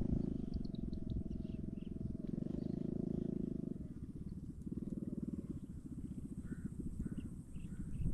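Baitcasting reel being cranked, a fast, even whirring buzz that is stronger for the first four seconds and then lighter as the line is retrieved. A few faint, short high chirps come through behind it.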